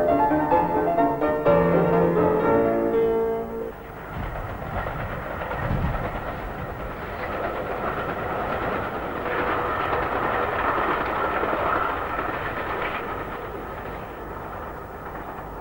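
Music ends about four seconds in and gives way to a passing train: an even rushing rail noise that slowly fades.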